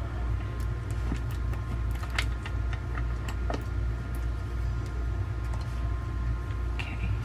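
Scattered light metallic clicks and ticks of screws being turned by hand into a gaming chair's metal seat mechanism, over a steady low hum.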